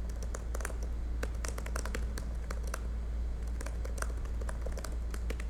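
Typing on a computer keyboard: a run of quick, irregular key clicks, over a steady low hum.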